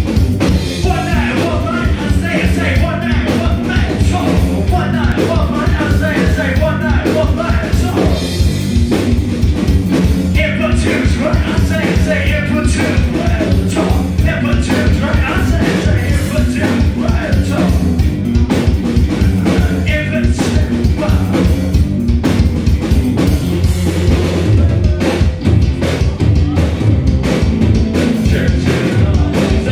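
Live rock band playing: a male singer over electric guitar, bass guitar and a drum kit, loud throughout, with the sung vocal lines coming and going.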